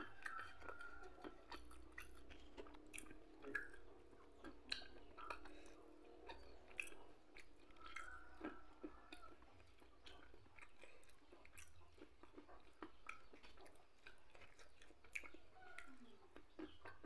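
Faint chewing and mouth sounds of a person eating with his fingers, with many small irregular clicks and smacks.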